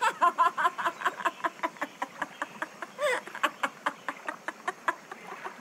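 An animal calling in a fast run of short, evenly spaced notes, about six a second, with a longer call about three seconds in.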